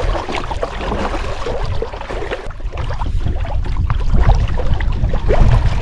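Wind buffeting the microphone: a loud, steady low rumble with scattered rustles.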